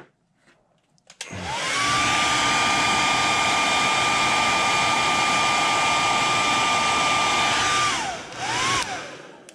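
Hand-held hair dryer switched on, its motor whine rising to a steady pitch over the rush of air as it dries freshly airbrushed paint on a fishing lure. After about six seconds it is switched off and winds down, then is blipped on briefly once more.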